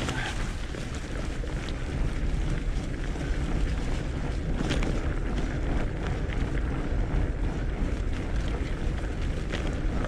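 Fatbike rolling along a leaf-covered dirt trail: 4.6-inch knobby fat tyres running over leaves and soil, with steady wind noise on the microphone and scattered small clicks and rattles from the bike.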